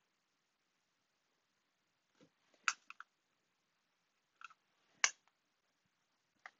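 Pencil and clear acrylic ruler ticking and tapping against each other and the cutting mat while fabric is marked: a few scattered short, sharp clicks, the sharpest about five seconds in.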